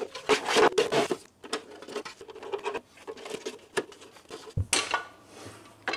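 The plastic base cover of a Permobil M3 power wheelchair being handled and fitted back over its electronics: a run of clicks and rattles, densest in the first second, and a dull knock about four and a half seconds in.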